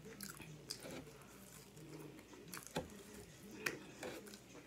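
Close-mic chewing of a French fry: soft, wet mouth sounds with smacks and a few sharper clicks scattered through, the loudest a little under three seconds in and again near four seconds.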